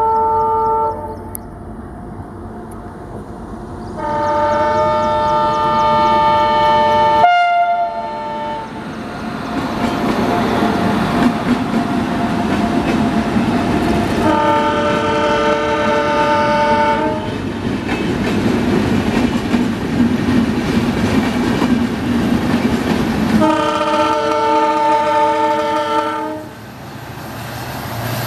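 Locomotive horns sounding several long blasts, each several tones at once, with the steady rumble of an approaching train between them. The sound breaks off sharply about seven seconds in and picks up again with another train's rumble and horn blasts.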